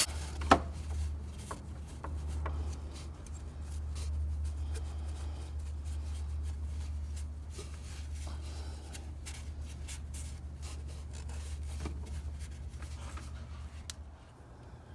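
A cloth rag rubbing and wiping over the aluminum water-pump mating surface of an engine block, cleaning it for a new gasket, with light scraping strokes and scattered clicks. A sharp click comes about half a second in. A steady low hum runs underneath and stops near the end.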